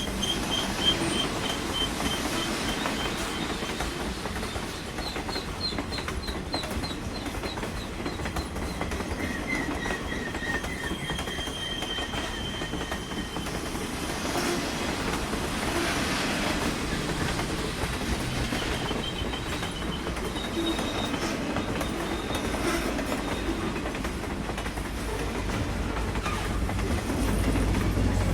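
Train rolling along the rails: a steady rumble with a clickety-clack of wheels and short runs of squealing, the low rumble growing louder near the end.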